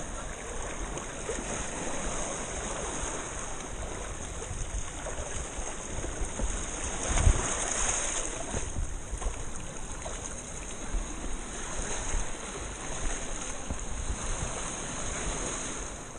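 Shallow sea water sloshing and lapping among rocks, with wind and handling noise on the camera. There is a single sharp knock a little past the middle.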